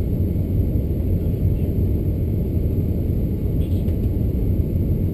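Airbus A380-861's Engine Alliance GP7200 engines and the rush of air heard inside the cabin during the climb after takeoff: a steady low rumble.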